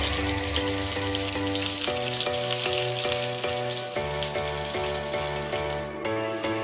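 Vegetable pieces frying in hot oil in an iron kadai, a steady crackling sizzle. Background music with a melody and bass line plays along.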